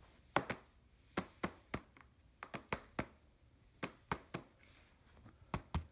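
About a dozen short, sharp clicks at irregular spacing, as air is let out of the inflated tensioning tube a little at a time to ease the over-stretched diaphragm back.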